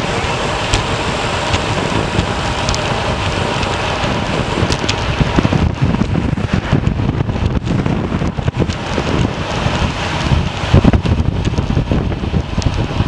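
Wind rushing and buffeting over the microphone of a moving bicycle, with a steady hiss of tyres on the road and a few light ticks.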